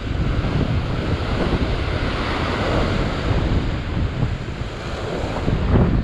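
Rough surf breaking and washing over rocks, with wind buffeting the microphone; the hiss of the wash swells about two to three seconds in.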